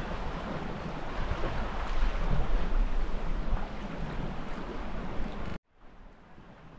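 Wind buffeting the microphone over water rushing past a small sailboat under sail in a strengthening breeze. About five and a half seconds in the sound cuts off abruptly and returns much quieter.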